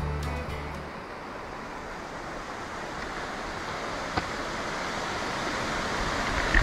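Steady rushing of a mountain stream, an even noise that slowly grows louder, with a faint click about four seconds in.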